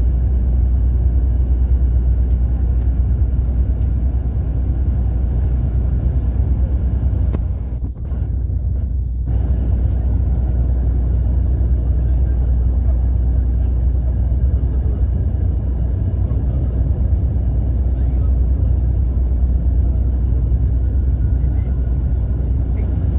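Cabin noise inside a coach on the road: a steady low engine and tyre rumble. It dips briefly about eight seconds in.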